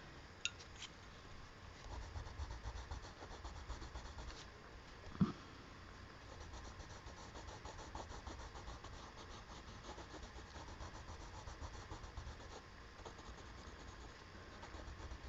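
Faint scratching of colored pencil strokes on paper, with a few small clicks near the start and a short knock about five seconds in.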